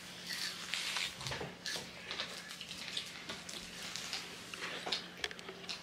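People eating at a table: faint chewing and mouth sounds with scattered small clicks and crackles, over a steady low hum.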